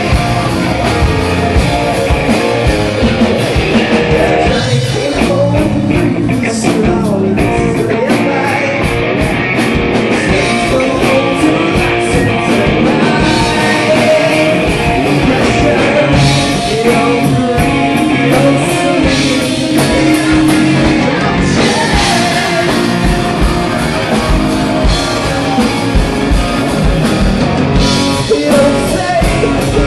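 Live rock band playing: electric guitars, electric bass and a drum kit, with a man singing lead vocals over them.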